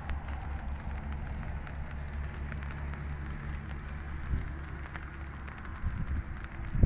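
Light rain falling, with many small drop ticks over a steady low rumble. There is one louder thump right at the end.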